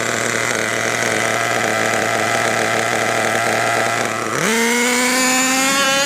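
Small two-stroke nitro engine of an RC truck, only one of its two engines running, idling steadily and then revved up about four seconds in, its pitch climbing steadily after that. The mixture has just been richened because it was running a little lean.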